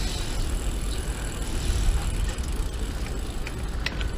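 A Brompton folding bicycle rolling along a concrete footbridge: a steady low rumble, with a few light clicks near the end.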